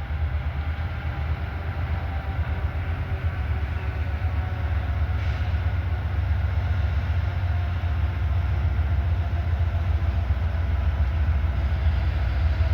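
Freight train rolling past with a steady low rumble of wheels and cars on the rails.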